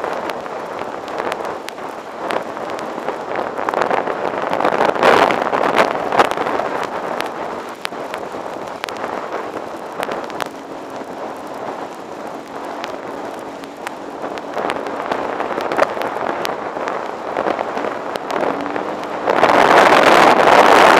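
Dirt bike riding on a wet dirt road, heard from an onboard camera: wind buffeting the microphone over the engine, with scattered ticks and knocks. The wind rush grows much louder near the end.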